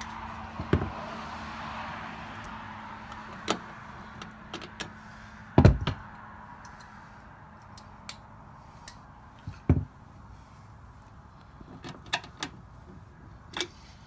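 Hand tools and plastic trim clicking and knocking against a car's trunk lid while the trim's pop clips and Torx screws are worked loose. About seven scattered knocks, the loudest a deep thud about halfway through, over a soft rustle in the first few seconds.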